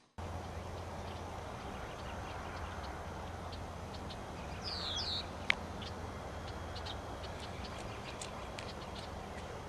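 Quiet outdoor ambience over a steady low hum, with a short two-note bird chirp about five seconds in and a single sharp click just after it.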